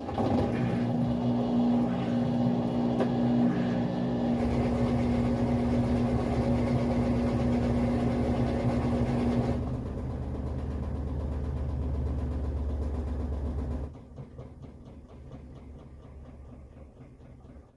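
Roper washing machine running: a steady motor hum with a held tone, shifting in character about four and ten seconds in, then dropping much quieter about fourteen seconds in.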